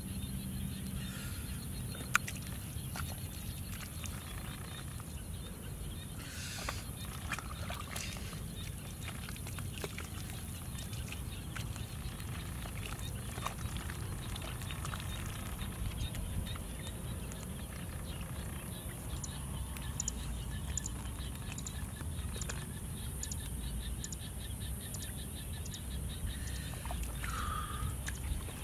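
Hands digging and squelching through wet, sticky paddy mud, with scattered small wet clicks, over a steady high-pitched drone and a low rumble; a short gliding chirp near the end.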